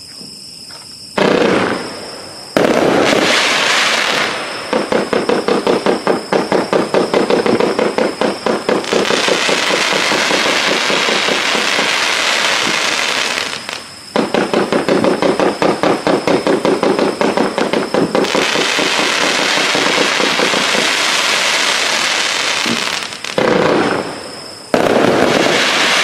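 Sunwing "Killer Unicorn" firework firing. It starts with a couple of loud bangs, then goes into long runs of rapid, evenly spaced pops, each run followed by several seconds of dense crackling. A few more big bursts come near the end.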